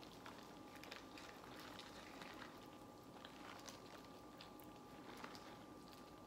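Near-silent eating sounds: faint scattered small clicks and smacks of crab being picked apart and eaten, over low room tone with a faint steady hum.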